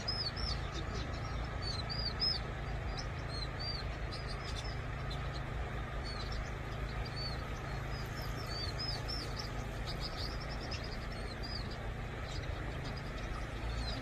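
Vinous-throated parrotbills calling: a flock giving many short, high chirps in quick scattered runs, over a steady low background rumble.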